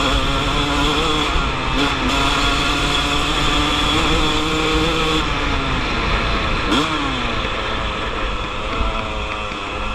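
Two-stroke dirt bike engine pulling steadily under way, with wind rushing over the microphone. The pitch sags a little past halfway, then there is one quick rev about two-thirds of the way through.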